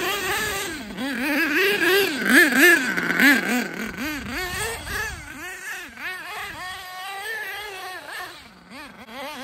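HPI Savage nitro RC monster truck's small two-stroke glow-fuel engine revving up and down over and over as it churns through deep snow, its pitch rising and falling two or three times a second. It grows fainter in the second half as the truck ploughs off into a drift.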